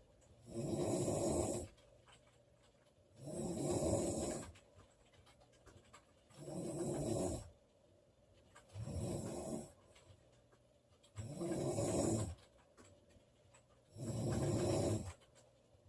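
A woman snoring in her sleep with a steady rhythm: six snores about two and a half seconds apart, each lasting about a second, with quiet breathing between.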